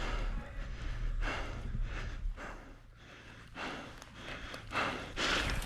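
A person breathing heavily close to the microphone, in a run of short noisy breaths, over a low steady rumble that fades about halfway through.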